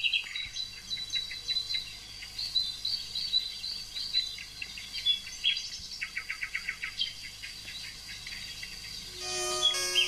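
Small songbird chirping and trilling in short repeated phrases, over a steady high-pitched insect drone. Music comes in near the end.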